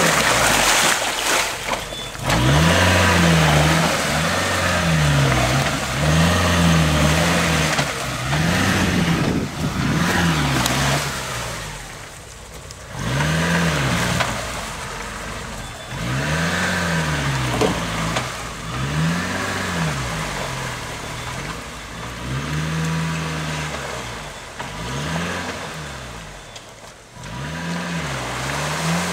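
Suzuki Samurai 4x4's engine revving up and falling back again and again, every second or two, as it churns through deep mud and water.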